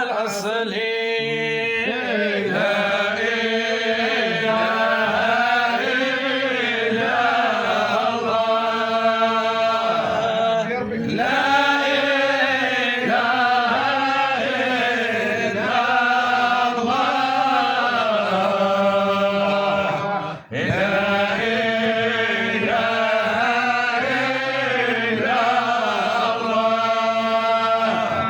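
Sufi devotional chanting of an Arabic qasida: sustained, melismatic vocal lines held and ornamented over a steady low tone, with a brief break about twenty seconds in.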